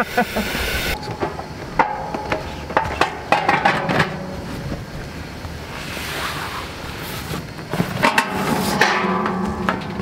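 Metal clanks and knocks as a perforated steel fire pit is handled and set down, in irregular clusters in the first few seconds and again near the end.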